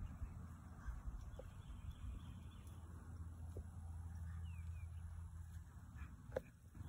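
Steady low outdoor rumble with a few faint thuds, the loudest near the end, and a couple of brief bird chirps.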